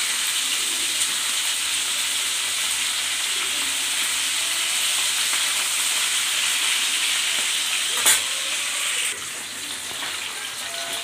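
Pabda fish frying in mustard oil, a steady sizzle as the fish are turned with a spatula. There is one sharp knock about eight seconds in, and the sizzle quietens a little a second later.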